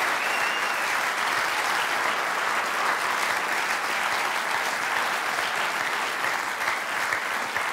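A large theatre audience applauding steadily, many hands clapping at once.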